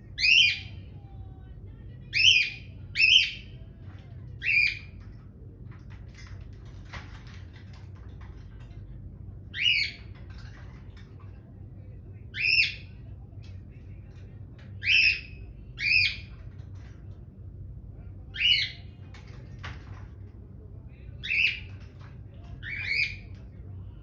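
Cockatiel giving short, loud, shrill squawking calls, about eleven of them at uneven intervals, some in quick pairs.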